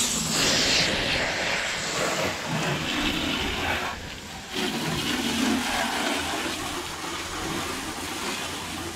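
Garden hose spray nozzle jetting water onto an aluminum boat hull and trailer, a steady spraying and splashing rinse. It dips briefly about four seconds in, then carries on.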